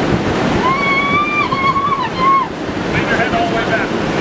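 A young woman's high-pitched squeal, wavering and breaking twice over about two seconds, starting about half a second in. Steady wind rushes on the microphone throughout, and brief voices follow near the end.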